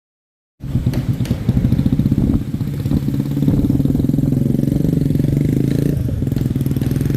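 A vehicle engine running close by with a steady, pulsing low note, cutting in abruptly about half a second in after dead silence.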